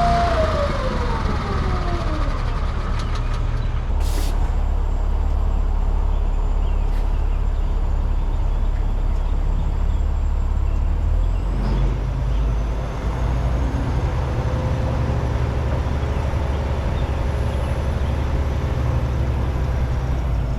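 Kenworth T800 semi truck's diesel engine idling with a steady low rumble, its pitch sliding down from a high whine as the revs drop at the start. A short sharp burst of air hiss comes about four seconds in.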